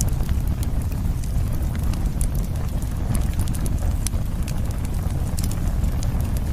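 Campfire burning, the wood crackling with many scattered sharp pops over a steady low rumble.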